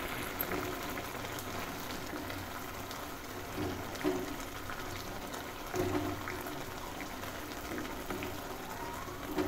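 Dal with drumstick leaves simmering in a pan, a steady bubbling, with a few brief louder bumps.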